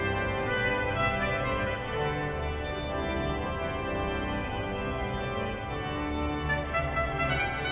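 Church pipe organ playing a passage of held notes and chords that change every so often.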